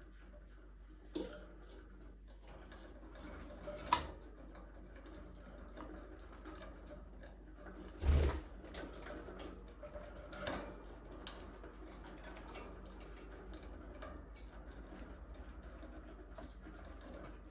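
Budgies in an aviary making quick light clicks and scratches, with a few louder knocks. The loudest knock, about eight seconds in, has a dull thud.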